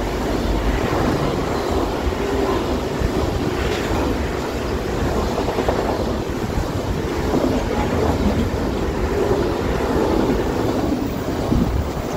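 Freight train's container wagons rolling past at speed: a steady rumble and rush of steel wheels on rail.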